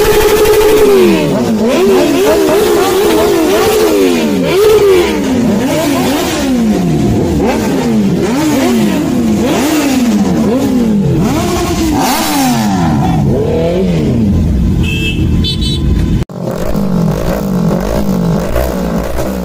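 Sport motorcycles with aftermarket exhausts revved while standing still. The first bike holds a high rev, then runs through a long series of rev blips, each rising and falling in pitch, about one a second. About 16 seconds in, the sound cuts suddenly to another bike revving in quicker blips.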